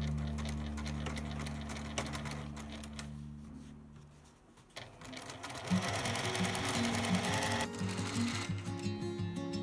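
Electric sewing machine running a seam, its motor hum and needle stitching heard over light background music.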